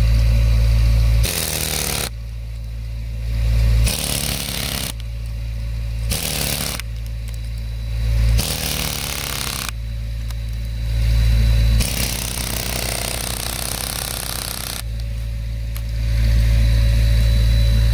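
Pneumatic air chisel hammering into a tree root in repeated bursts a second or two long, with short pauses between, the longest burst near the end. A steady low mechanical hum carries on between the bursts.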